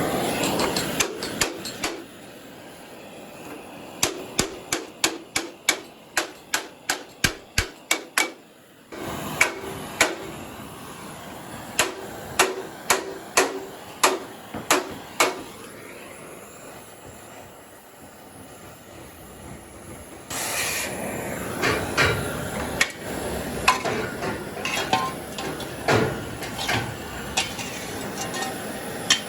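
Hammer blows on metal, struck in quick, even runs of about two to three a second with short pauses between runs; in the last third a steady noise runs under more scattered knocks.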